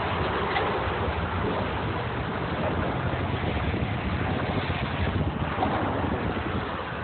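Wind buffeting the microphone in a steady rumble, over the sound of sports cars driving past on a race track.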